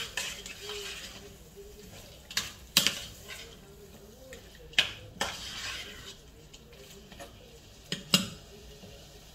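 A metal spoon stirs and scrapes a thick lamb and onion curry in a stainless steel pot, knocking sharply against the pot several times, with two knocks close together near the end the loudest.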